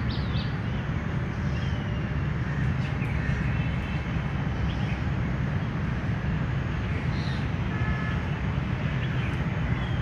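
Steady low rumble of city traffic, with a few faint bird calls over it, crows among them.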